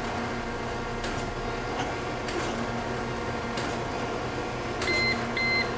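Kent KGS-84AHD hydraulic surface grinder running with a steady hum while the wheel sparks out with no downfeed. About five seconds in, its end-of-cycle buzzer starts beeping, about two beeps a second.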